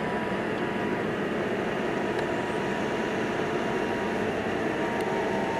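Steady rushing noise on a cruise ship's upper deck, with a faint thin whine held at one pitch.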